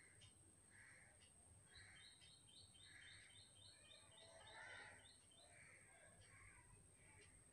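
Near silence with faint bird calls: soft calls about once a second and a quick run of chirps about two seconds in.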